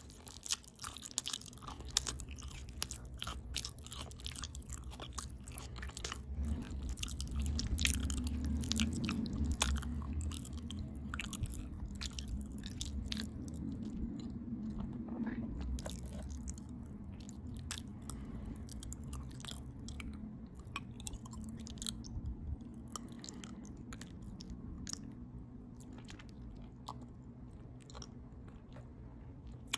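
Close-up open-mouth chewing of a potato taco bowl of potatoes, ground beef, cheese, lettuce and tomato, with many wet smacking and clicking mouth sounds. The clicks come thick at first and thin out over the second half.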